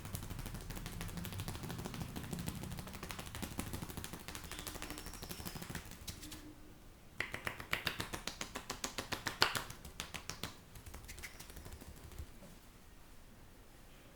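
Hands rapidly tapping and patting during an Indian head massage: a dense run of quick light slaps, then about halfway in a louder three-second run of sharp, evenly spaced smacks at about six a second.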